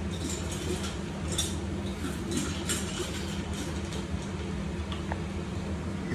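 A puppy eating dry kibble from a stainless steel slow-feeder bowl: irregular clinks and crunches of kibble against the metal, over a steady low hum.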